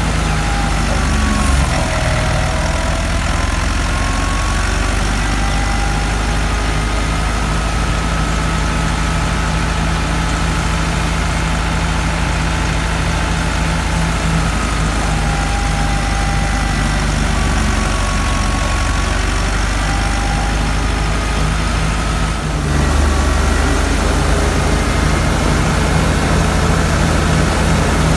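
Massey Ferguson 385's 85 hp four-cylinder diesel engine running steadily under load, powering a wheat thresher through its PTO shaft. A high whine over the engine hum dips and recovers in pitch several times. About three-quarters of the way through, the sound turns suddenly louder and deeper.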